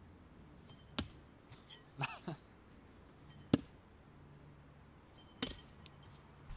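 Three sharp knocks of thrown knives striking the target, roughly two seconds apart, the middle one loudest.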